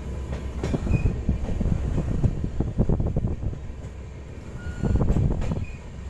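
Passenger train running along the track: a steady low rumble of the coach, with quick clusters of wheel clicks and rattles from about half a second in to three seconds in, and again around five seconds in.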